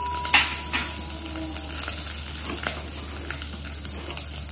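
Whole spices, curry leaves and chopped green chillies sizzling in hot ghee in a pot: the tadka (tempering) stage of a kadhi, a steady hiss with scattered small crackles. A single sharp clack comes about a third of a second in.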